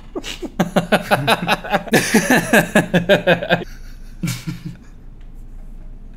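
Two men laughing hard in quick, repeated bursts that die away after about three and a half seconds, followed by one more short laugh.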